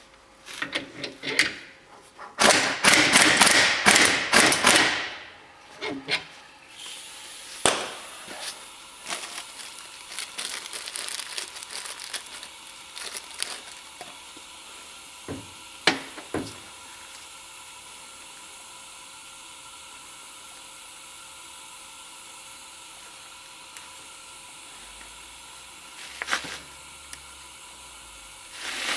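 Hand-tool work on a steel U-joint clamped in a bench vise with a joint press: a dense run of rapid metallic clicking and clatter lasting a couple of seconds, then scattered single clicks and knocks over a steady faint hiss.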